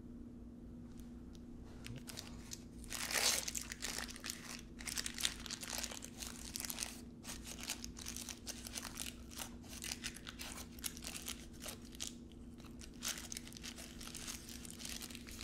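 Scrunched baking-paper muffin case crinkling and crackling as it is peeled off a freshly baked muffin. The rustling starts about two and a half seconds in, is loudest right at the start, and goes on in irregular crackles until near the end.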